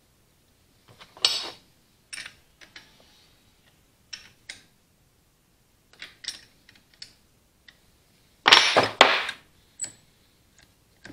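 Scattered metallic clicks and clanks from handling the Allis-Chalmers WD45 starter motor and its lever-operated starter switch on a wooden workbench, with a sharp clank about a second in and a louder cluster of clanks near the end.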